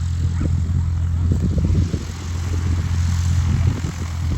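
A loud, steady low engine drone holding one pitch, with irregular low rumbles over it.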